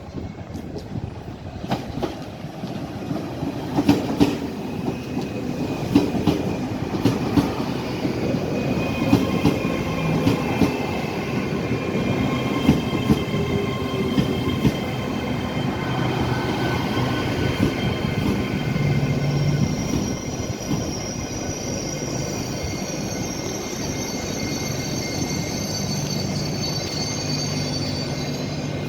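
A train running into the station and slowing: its wheels clatter over the rail joints with sharp clicks, then high brake and wheel squeal builds in the last third as it draws to a stop, over a steady low hum.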